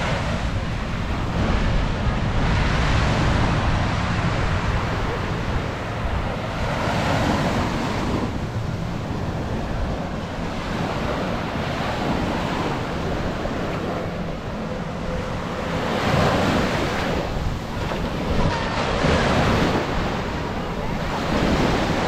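Small ocean waves breaking and washing up the sand, the surf swelling and fading every few seconds, with wind buffeting the microphone.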